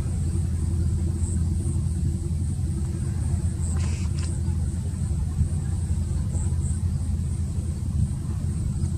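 Steady low drone of a wooden fishing trawler's engine as the boat motors past, with two faint clicks about four seconds in.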